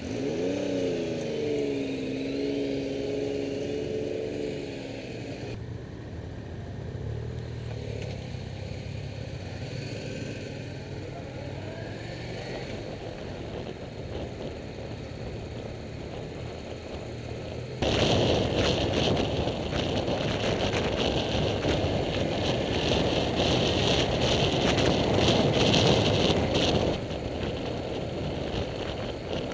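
Motorcycle engine pulling away, its pitch rising and then holding, then running more quietly on the road. About two-thirds of the way through, a loud rushing noise of wind and road on the bike-mounted microphone takes over for several seconds.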